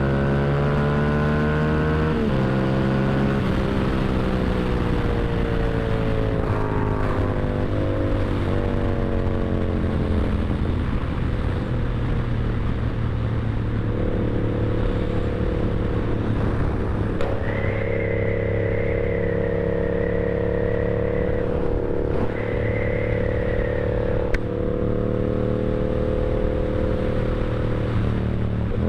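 Yamaha R7 motorcycle's parallel-twin engine running while riding, its pitch stepping down near the start as the revs fall, then holding fairly steady before changing again near the end. A thin high whine comes in twice in the second half.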